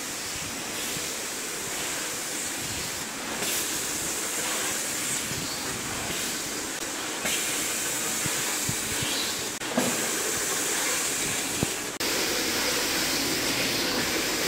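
Automatic rhinestone-setting machines running, giving a steady hiss with a few faint clicks. The sound changes abruptly about three times.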